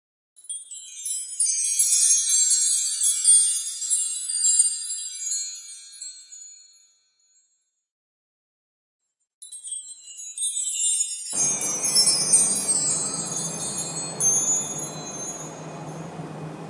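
Wind chimes tinkling in two spells a few seconds apart, with dead silence between them. Under the second spell a steady low hum and a wash of background noise come in.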